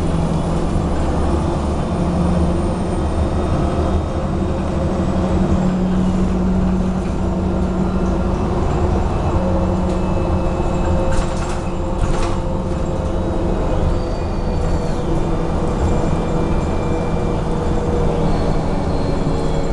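A MAZ-107 city bus under way, heard from inside the cabin: a steady engine and road rumble with whining tones that slowly shift in pitch, and two brief rattles about eleven and twelve seconds in.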